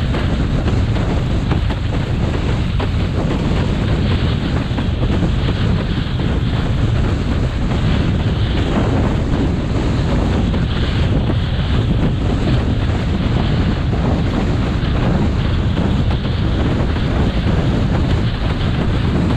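Strong wind rumbling on a small action camera's microphone, with water rushing and splashing under a windsurf board as it sails. The sound is a steady, heavy noise with no breaks.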